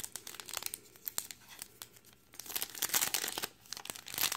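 Foil wrapper of a Topps baseball card hobby pack being torn open and crinkled by hand. Scattered crackles come first, then denser, louder crinkling from a little past halfway.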